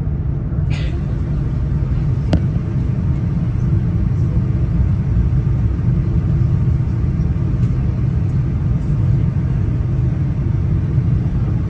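Steady low rumble of a Boeing 787-9 airliner heard from inside the passenger cabin as it moves on the ground for takeoff, with a short hiss about a second in and a faint click a little after two seconds.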